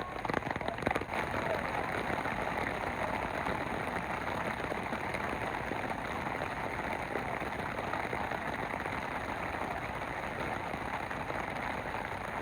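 Steady rain falling, a dense even hiss of drops, with some sharper pattering ticks in the first second.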